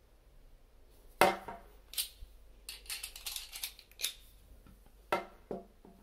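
Sharp clicks and knocks of a plastic toilet fill valve and a screwdriver being handled and set down on a ceramic tank lid. The loudest knock comes about a second in, followed by a run of small clicks and a few more knocks near the end.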